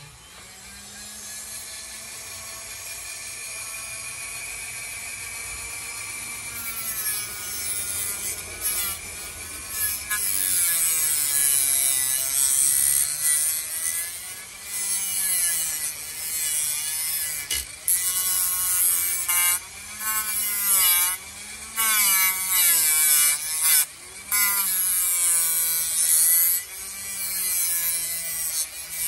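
Dremel rotary tool on a flexible shaft spinning a sanding flap disc, grinding the sharp edges off the cylinder ports of an outboard engine block to chamfer them. The motor whine holds steady at first. After that its pitch dips and recovers again and again as the disc is pressed on, with a hiss of abrasion and a few short breaks where the disc is lifted off.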